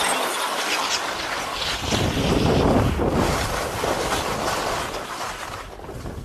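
Skis hissing and scraping over packed snow, with wind buffeting the camera's microphone. The low wind rumble grows much stronger about two seconds in as the skier gathers speed.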